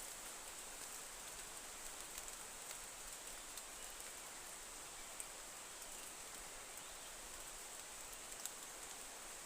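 Faint forest ambience: a steady high-pitched hiss, with a few faint scattered ticks.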